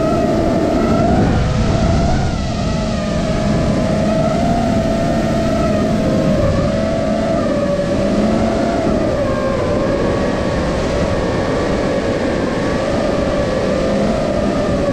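FPV drone's motors and propellers whining in flight, the pitch wavering up and down as the throttle changes, over a steady rush of prop wash and wind, heard up close from the camera mounted on the drone.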